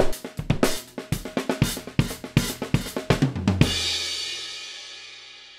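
Drum kit fill: a quick run of snare and drum hits for about three and a half seconds, ending on a cymbal crash with a bass drum that rings out and slowly fades.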